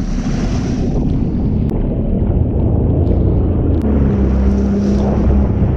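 Sea-Doo Spark personal watercraft engine running, with a steady low engine note that settles in about four seconds in, over rough wind and water noise.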